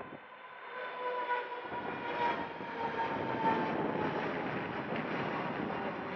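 Mitsubishi CRJ-1000 regional jet's twin rear-mounted turbofans during the climb after takeoff: a jet roar with a steady whine that slowly falls in pitch. The roar fills in and grows louder about a second and a half in.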